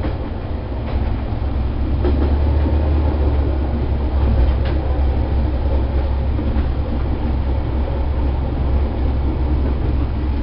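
Diesel railcar running along the track, heard from on board: a steady low engine drone and wheel rumble with a few faint clicks from the rails, growing a little louder about a second in.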